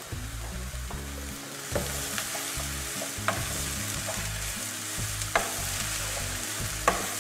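Diced eggplant sizzling steadily as it fries in oil in a pan and is stirred with a wooden spoon. The spoon knocks sharply against the pan four times, about every one and a half to two seconds.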